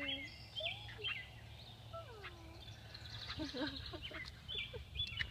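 Birds chirping and calling outdoors: many short high chirps, and a few calls that slide down in pitch, over a steady low hum.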